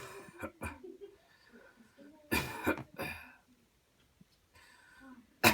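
A person coughing deliberately and hard, as part of a cleansing coughing exercise. There is a cough about two and a half seconds in with a smaller one just after it, and a loud cough breaks out at the very end.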